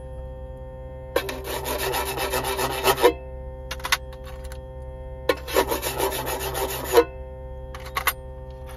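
Electric clipper-blade demagnetizer humming steadily while steel clipper blades are drawn across its plate. The blades buzz and rasp against the plate in two passes of about two seconds each, with two brief touches between and after.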